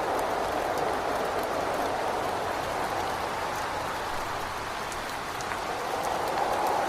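Steady rain with wind rushing against a window, the wind easing a little around the middle and swelling again near the end, with scattered faint drop ticks.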